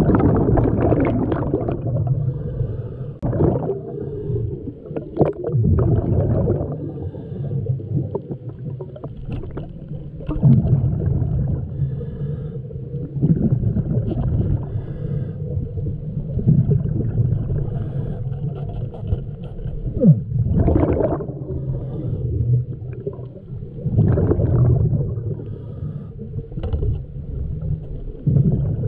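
Muffled underwater sound picked up by a camera below the surface: water rushing and swirling in uneven surges, with a few sharp knocks as the diver moves and handles the net.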